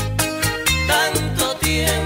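A bachata song playing, with a bass line moving under a steady percussion beat of about four strokes a second.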